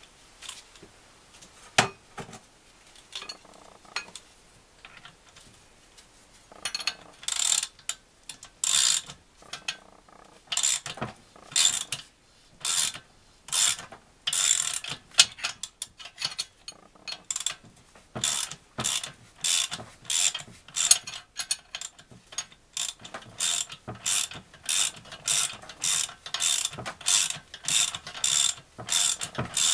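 Socket wrench ratchet clicking as its handle is swung back and forth, in short bursts about once a second from about seven seconds in, after a few scattered metal knocks.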